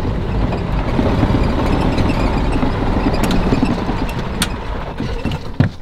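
Golf cart being driven: its motor running steadily along with the rumble of the ride, with a few sharp clicks and knocks.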